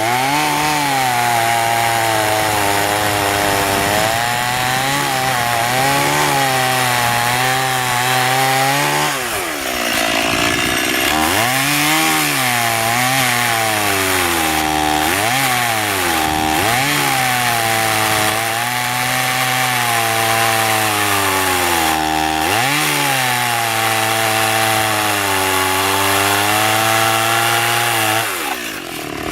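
Stihl 018 (MS 180) two-stroke chainsaw running hard while cutting into a thick hardwood trunk. Its pitch drops again and again as the engine bogs under load and then picks back up. The revs fall away briefly about nine seconds in and again near the end.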